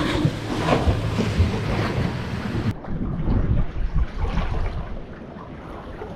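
Wind buffeting the microphone over the steady wash of surf breaking against a rock wall, with a few light knocks.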